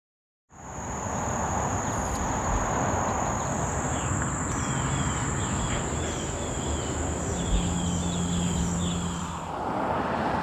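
Outdoor summer ambience: insects keeping up a steady high-pitched drone, with a run of short repeated chirps from about four seconds in, over a steady rushing background. A low hum joins briefly near the end.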